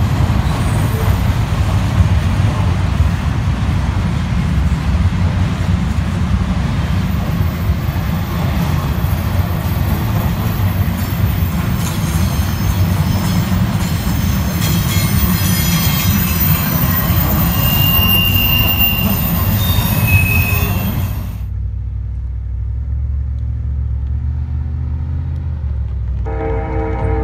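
A train passing close by: a loud, steady rumble of wheels on rail, with faint high wheel squeals in its later seconds. It cuts off suddenly about three-quarters of the way through, leaving a low hum and, near the end, a steady pitched tone.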